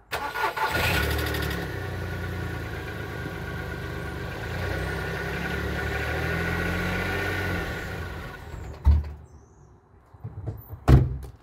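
2007 Volkswagen Polo engine starting and running steadily and quietly, its exhaust hole freshly wrapped, then cutting out after about eight seconds: the engine won't stay running. Two sharp thumps follow near the end.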